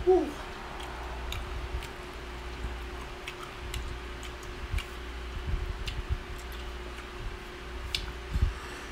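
Eating sounds: a person chewing slices of green mango, with scattered small wet clicks and smacks of the mouth and fingers. A short falling 'mm' from the eater comes right at the start, and a soft low thud near the end, over a steady low hum.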